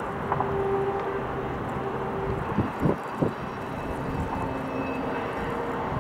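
Steady hum of distant city traffic and machinery, with two or three short, sharp pitched sounds about halfway through.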